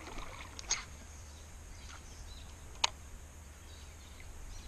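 Quiet tropical bush ambience: a steady high-pitched insect drone over a low hum, with a few faint clicks and one sharp click about three seconds in.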